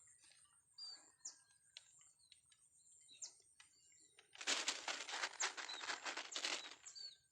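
Small birds chirping with short, high, falling calls. About four and a half seconds in, a loud rapid rustling flutter runs for about two and a half seconds.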